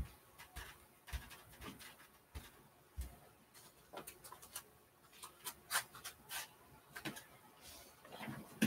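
Faint, scattered soft thumps, taps and rustles from bare feet on the floor and a cloth hat being handled. A cluster of sharper clicks comes about five and a half to six and a half seconds in.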